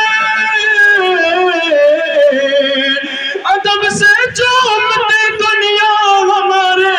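A man singing an Urdu nazm solo into a microphone, drawing out long, wavering melismatic notes. There is a short break about three seconds in, then he rises into a higher phrase.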